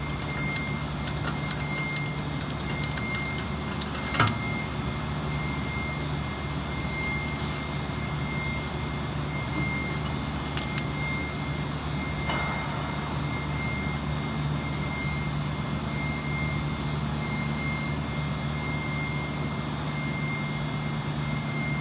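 Ratchet cable cutters clicking as they are worked through 3/0 grounding cable: a quick run of clicks for about four seconds that ends in one louder snap. After that a steady mechanical hum runs on, with a few stray clicks.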